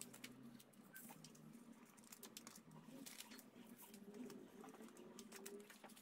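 Near silence with faint rustles and light taps of paper petals being handled and pressed into place.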